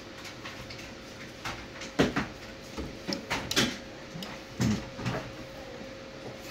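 A string of sharp clicks and knocks from hands working on a desktop motherboard, bunched from about two to five seconds in, over a steady faint hum.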